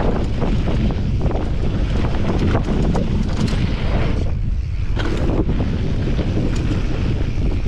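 Wind buffeting the action camera's microphone at speed, over the steady low rumble of mountain bike tyres rolling on a dry, gravelly dirt trail, with many scattered clicks and rattles from stones and the bike.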